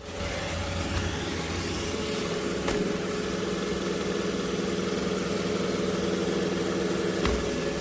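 iRobot Roomba j7+ robot vacuum running, a steady motor hum and hiss with a couple of faint clicks.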